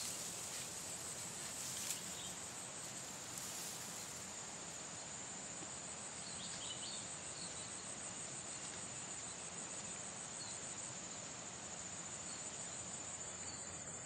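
Chorus of insects trilling steadily at a high pitch, over soft outdoor background noise.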